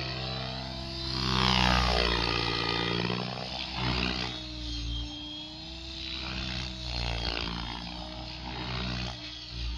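Blade Fusion 700 electric RC helicopter in flight: rotor and motor noise that swells and fades as it swoops through manoeuvres. It is loudest about one to two seconds in, with smaller swells later.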